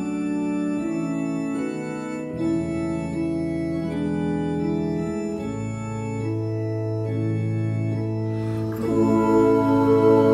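Two-manual electronic organ playing a slow passage of sustained chords over a moving bass line. About nine seconds in, a mixed choir comes in singing and the sound grows louder.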